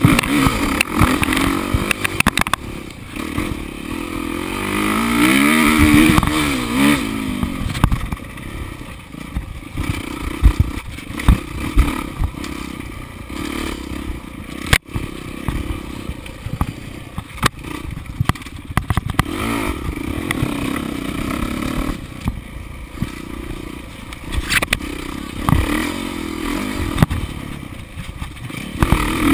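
Off-road motorcycle engine running hard on a race trail, its pitch rising and falling over and over as the rider throttles and shifts. Rattling and clattering from the bike come through over the engine, with a sharp knock about halfway through.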